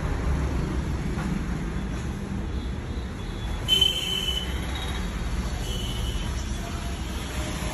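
Steady low rumbling background noise, with a brief high squeak about four seconds in.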